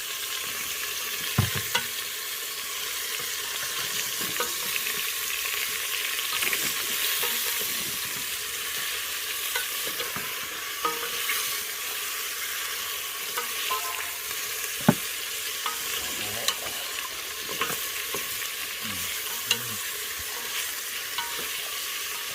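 Food sizzling as it fries in a hot pan while being stirred, a steady hiss with scattered sharp clicks of a utensil against the pan.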